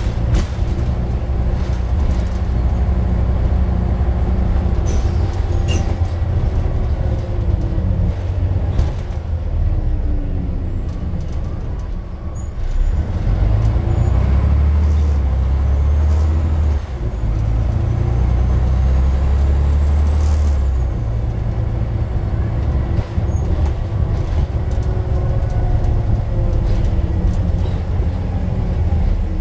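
Scania N94 bus engine heard from inside the saloon while the bus is under way: a deep rumble whose note rises and falls as the bus pulls and changes gear, loudest for several seconds in the middle. Occasional short clicks and rattles are heard over it.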